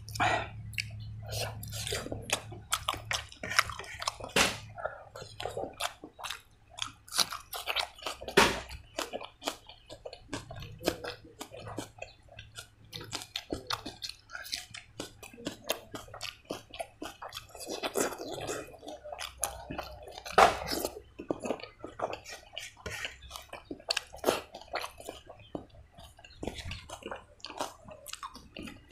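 Close-miked wet chewing and lip smacking of rice and pork fry with bamboo shoots eaten by hand. It comes as many quick, irregular clicks and smacks.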